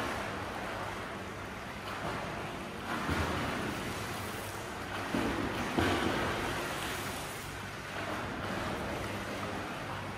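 Water splashing from a swimmer doing front crawl, in uneven surges every second or two as the arms stroke and the feet kick.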